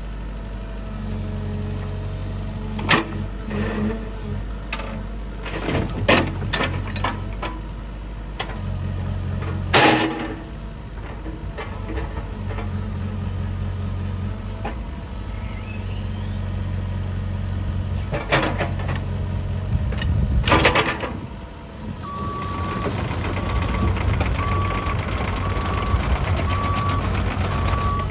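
CAT 305E2 mini excavator's diesel engine running steadily while the boom, stick and bucket are worked, with several sharp clanks. About two-thirds of the way through it starts travelling on its steel tracks: a clattering rattle sets in and the travel alarm beeps about once a second.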